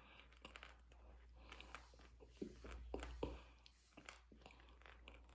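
Close-up mouth chewing and crunching a spoonful of crunchy food: a quiet, irregular run of crisp crackles and clicks, with a few louder crunches about two and a half to three and a quarter seconds in.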